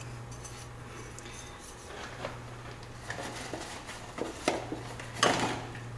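Light clicks and rustles of hands handling a plastic oil filter housing cap while a new O-ring is seated in its groove, scattered over a steady low hum.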